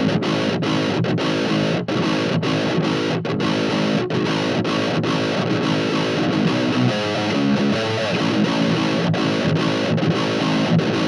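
Seven-string electric guitar with Fishman Fluence active pickups playing a heavily distorted, chugging metal riff through a 2x10 cabinet loaded with Celestion 10-30 speakers, with many brief, tight stops between the chugs.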